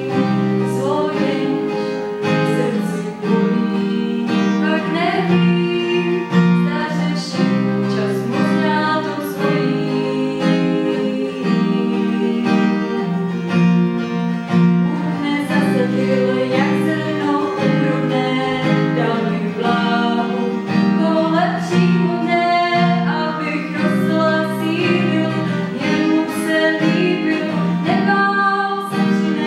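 A woman singing with acoustic guitar accompaniment, a continuous song.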